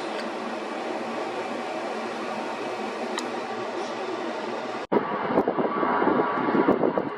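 Jet airliner engine noise, steady at first; about five seconds in, a cut brings a louder, rougher engine rumble.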